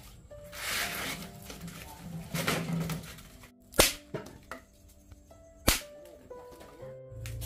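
Two swishing sweeps, then sharp single strikes about two seconds apart.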